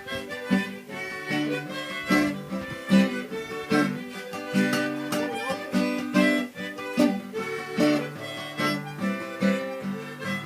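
Instrumental break in a forró song, with no singing: a melody over a steady, repeating plucked rhythm.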